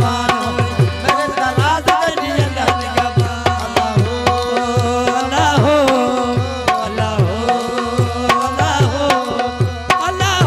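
Live South Asian folk music. A tabla-type hand drum beats a quick, steady rhythm of about three strokes a second, its low strokes bending down in pitch, under a wavering melody line.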